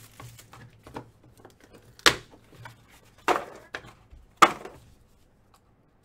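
Trading cards and their packaging being handled on a table: three sharp snaps or knocks about a second apart among fainter clicks, as a new pack is opened and its cards laid out.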